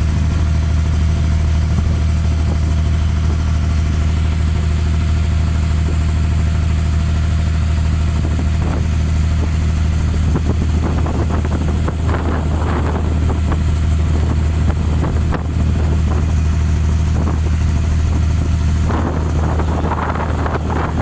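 Abra water taxi's inboard diesel engine running steadily at an even speed, a loud low hum heard from on board the boat.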